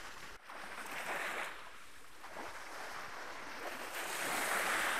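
Small Black Sea waves washing onto a sandy beach, the surf swelling twice, the second time louder near the end, with some wind on the microphone.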